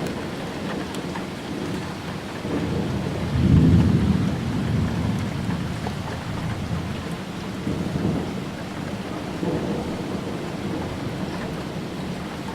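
Thunder rumbling over steady rain, with the loudest roll of thunder about three and a half seconds in and a weaker one about eight seconds in.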